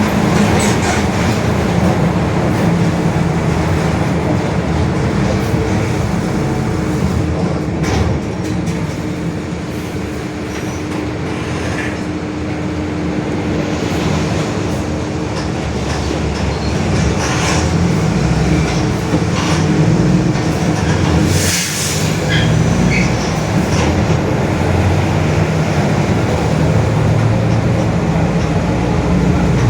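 Mercedes-Benz OF-1721 BlueTec 5 city bus heard from inside while under way: the diesel drivetrain runs with a steady droning tone from the differential, with a few short knocks and rattles from the body.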